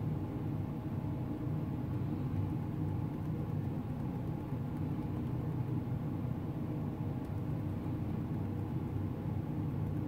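Steady low hum and rumble of running machinery, with a few faint steady tones and no separate clicks or beeps.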